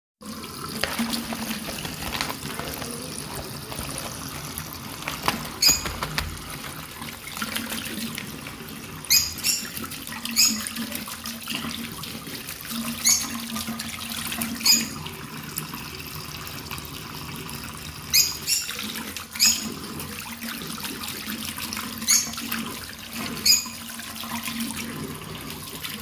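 Tap water running steadily into a ceramic wash basin, with about a dozen short, sharp, high-pitched chirps every few seconds from a lutino peach-faced lovebird bathing under the stream.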